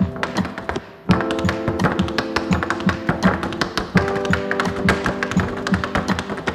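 Tap shoes striking a wooden tap board in quick rhythmic patterns over music with held chords. Both fall away briefly just before a second in, then come back together.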